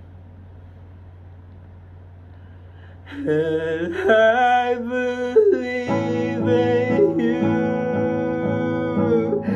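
A man sings a slow melody with long held notes, coming in about three seconds in after a faint steady low hum. About three seconds later an acoustic guitar joins under the voice, playing sustained chords.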